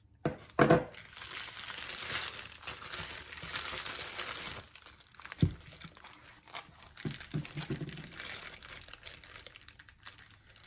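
Packaging being torn open and crinkled by hand, with a couple of sharp knocks at the start and another about halfway through.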